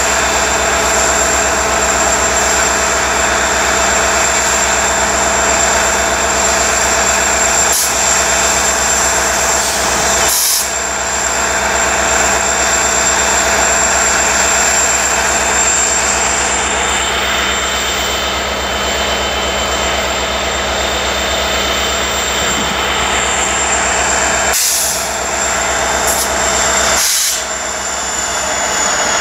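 SNTF diesel-electric freight locomotive standing with its diesel engine running, a steady mechanical sound with a high-pitched whine that falls in pitch near the end.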